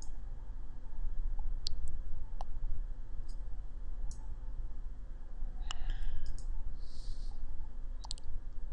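A few scattered computer mouse clicks, irregularly spaced, over a steady low hum of room and microphone noise.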